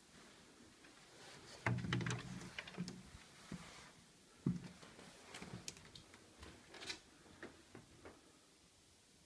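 Knocks and thumps of a door being opened and walked through: a cluster about two seconds in and a single sharp thump midway, followed by scattered light clicks from footsteps and handling.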